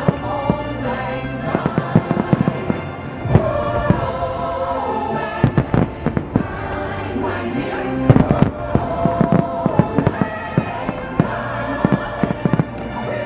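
Aerial fireworks shells bursting in rapid, irregular volleys, loudest about eight seconds in, over show music played through loudspeakers.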